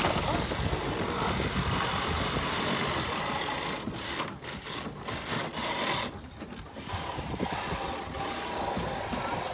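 Continuous rough scraping and crunching as firefighters work at a crashed minivan's broken door window with a hand tool, clearing the glass. The noise breaks off briefly a few times, around four and six seconds in.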